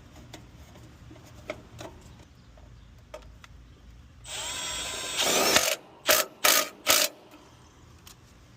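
A cordless drill/driver spins up with a rising whine, about four seconds in, and runs a screw in for about a second and a half. Three short trigger pulses then snug the screw down. Before it there are only faint handling clicks.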